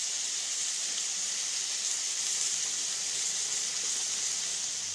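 Bitter gourd and tomato pieces sizzling as they fry in a pan: a steady, even hiss.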